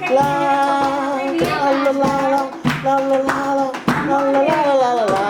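Music: a melody of long held, steady notes, each about a second, over sharp percussive taps between the notes.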